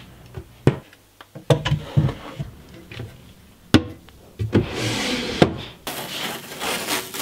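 Hands handling a wooden workshop cabinet: a string of sharp knocks and taps on the wood, then a rubbing, sliding noise near the end.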